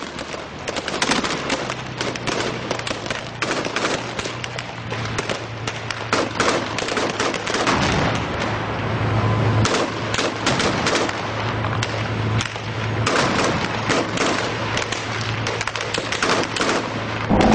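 Dense, irregular cracks of gunfire in rapid bursts over the steady low drone of an armoured vehicle's engine.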